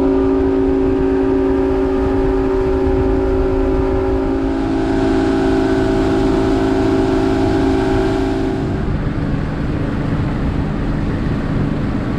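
Boat's outboard motor running steadily at speed, then changing to a lower, rougher note about nine seconds in.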